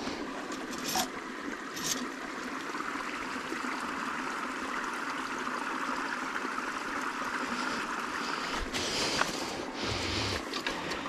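Shallow channel water trickling and sloshing as hands work a trap under the surface. There are a few sharp knocks about one and two seconds in, and louder splashing and handling noise near the end.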